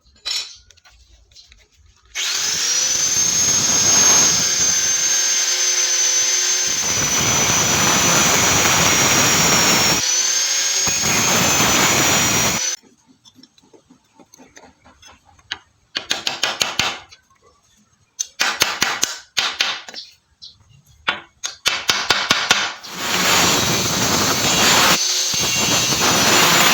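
Angle grinder spinning up with a high whine and grinding scrap iron for about ten seconds, its pitch dipping briefly under load. After a pause come several clusters of short, rough scraping strokes, then the grinder runs again near the end.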